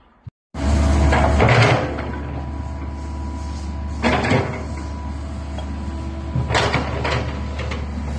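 Komatsu PC130-7 excavator's diesel engine running under load as the boom and arm are worked. The sound starts abruptly about half a second in, with louder surges about a second in, around four seconds and near the end.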